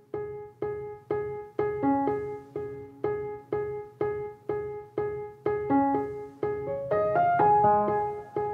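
Background piano music: one note struck over and over, about twice a second, with more notes of a melody joining near the end.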